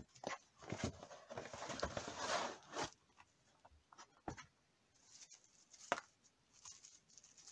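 A cardboard mailer being opened by hand: about two and a half seconds of paper and cardboard rustling and scraping as the paper-wrapped books are pulled out, then a few light knocks of handling.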